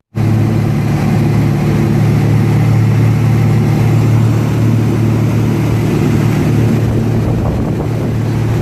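An engine running steadily with a low, even drone, over a rushing noise such as wind on the microphone.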